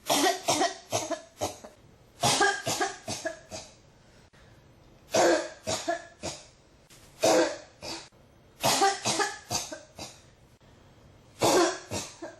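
A person coughing in a continuing fit: about six bouts of several quick, sharp coughs each, with short quiet gaps between the bouts.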